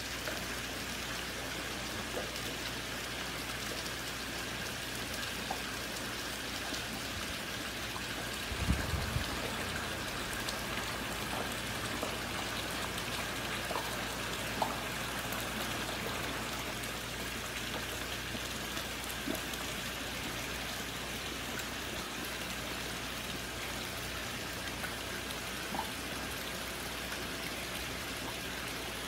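Steady splashing and trickling of water in an indoor shrimp-fishing pool, where bubbles and an inflow keep the water moving, over a steady low hum. A brief low thump comes about nine seconds in.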